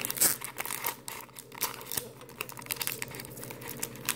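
Foil wrapper of a Pokémon Trading Card Game booster pack crinkling as it is handled and the cards are pulled out of it: a run of irregular crackles.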